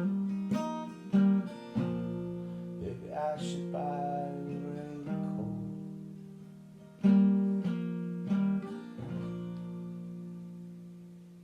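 Acoustic guitar playing the closing chords of a song: a few strummed chords, then a last chord left to ring and fade away.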